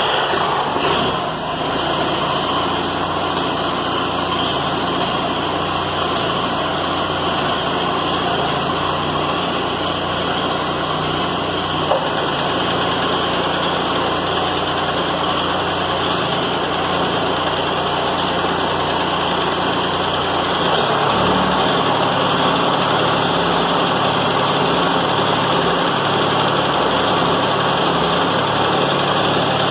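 Allis-Chalmers CA tractor's four-cylinder engine running steadily. About twenty seconds in, the low end turns into an uneven pulsing and the level rises a little as the hydraulic lift is worked. The lift's hydraulic pump stutters, which the owner puts down to one or two stuck pump valves after the tractor sat for years.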